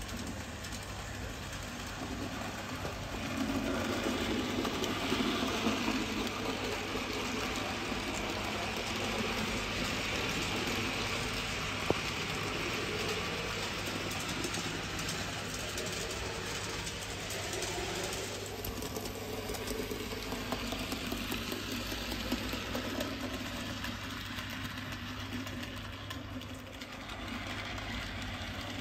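N gauge model train running along the track: a steady whir of the small locomotive's motor and the rumble of its wheels on the rails, growing louder a few seconds in.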